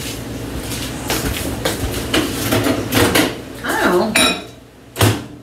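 Spoon scraping and clinking against a pot of macaroni and cheese in irregular strokes, with one sharp clank about five seconds in.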